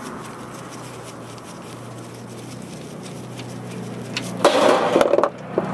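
Oil drain bolt on a Suzuki Wagon R's oil pan being turned out by hand, with a low steady hum behind. About four and a half seconds in, a short loud splash and clatter as the bolt comes free and drops, and the engine oil starts to gush out.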